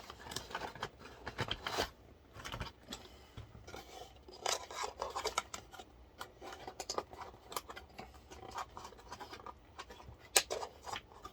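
Hands handling computer parts and their packaging: scattered small clicks, scrapes and rustles, with one sharper click near the end.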